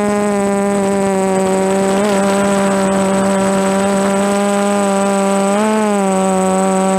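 DJI F330 quadcopter's brushless motors and propellers whining steadily in flight. The pitch wobbles briefly about two seconds in and again near six seconds.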